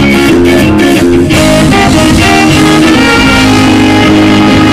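Live band playing an instrumental passage on trombone, trumpet, electric guitar, bass and drums, with no singing. The drum hits drop out a little over a second in, leaving the band holding sustained notes.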